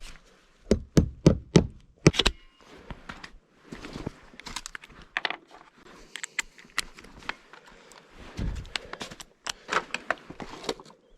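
An irregular run of knocks and taps, as of hand work with tools and materials, loudest in a quick cluster of four or five thuds about a second in.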